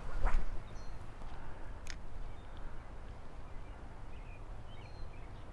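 A quick falling whoosh a fraction of a second in as a light spinning rod is cast, then wind noise on the microphone with a few short bird chirps.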